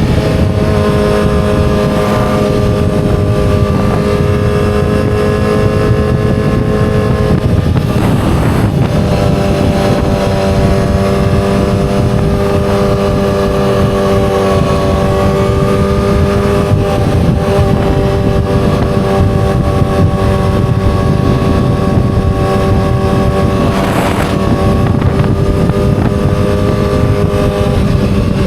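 2007 Yamaha R6's 600 cc inline-four engine running loudly at a steady, held engine speed. The note breaks briefly twice, about eight seconds in and again near the end, and settles at a slightly different pitch each time.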